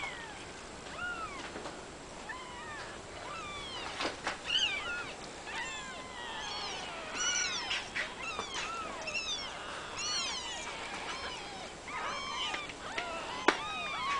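Nine-day-old Oriental longhair kittens mewing: many short, high squeaks that rise and fall, several kittens calling over one another. A sharp click stands out near the end.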